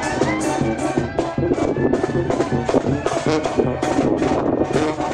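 Tamborazo band music: brass playing a melody over a steady drum beat of about three strokes a second.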